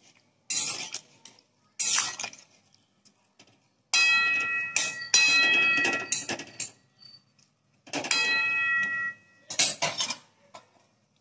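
Metal spatula stirring steamed broccoli and potato pieces in a metal kadai, knocking and scraping against the pan. A few short knocks, then two longer stretches of ringing metallic clatter starting about four and about eight seconds in.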